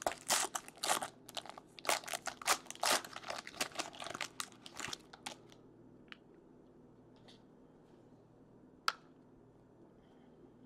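A trading-card pack wrapper being torn open and crinkled by hand, a dense run of crackles that stops about five seconds in. After that there are a few small clicks and one sharp tap near the end, as the cards are handled.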